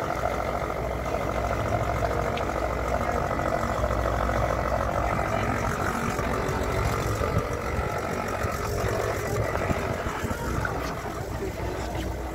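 Fishing boat's engine running steadily underway, a constant low rumble.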